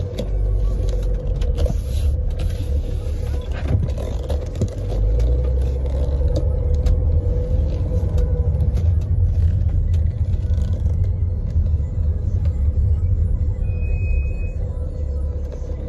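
Car rumbling as heard from inside the cabin while it moves slowly, heavier from about five seconds in, with scattered small knocks and a brief high-pitched tone near the end.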